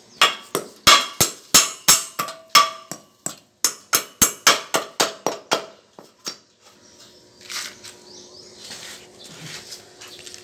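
A hammer striking metal in quick, even blows, about three a second, stopping about six seconds in; a faint hiss follows.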